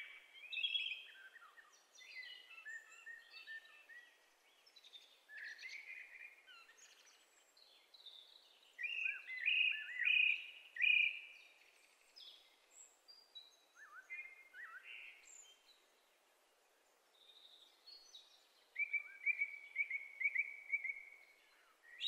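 Common blackbird singing: a series of fluty, warbling song phrases separated by short pauses, ending in a run of quick repeated notes near the end.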